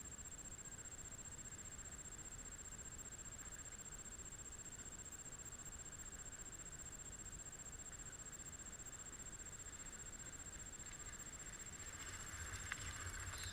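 Faint outdoor ambience: an even hiss with a constant high-pitched whine, and a few clicks and a low rumble in the last second or so.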